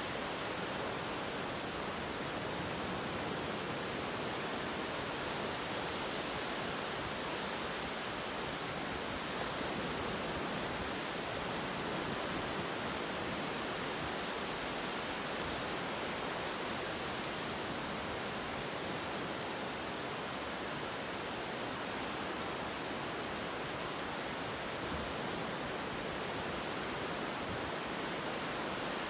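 Steady, even rushing noise with no distinct events, like a surf or waterfall sound bed.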